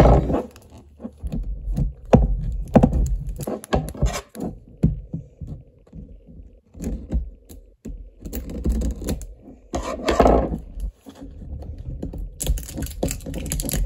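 Scissors snipping at a rigid plastic capsule while hands grip and turn it: irregular clicks, taps and handling knocks, with a louder, longer scrape about ten seconds in.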